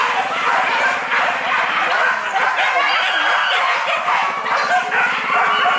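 Several boar-hunting dogs barking at once, their calls overlapping at different pitches without a break.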